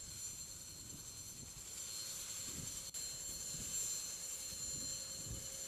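Mi-26 heavy-lift helicopter running on the ground with its rotors turning: a steady high turbine whine over a rushing noise.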